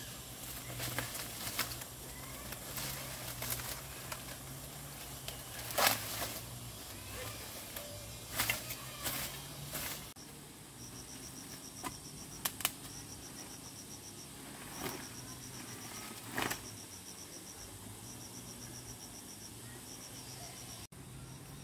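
Insect chirping: short high pulsed trills repeating about once a second, starting about halfway in. Under it a low steady hum, with a few sharp knocks and clicks that are the loudest sounds.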